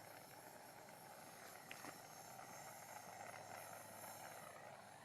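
Near silence: faint steady background hiss, with one faint click about two seconds in.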